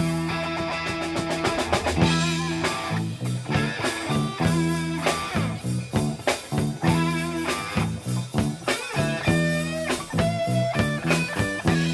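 Blues band playing live in an instrumental break: guitar lead with bent notes over a repeating bass riff and drum kit.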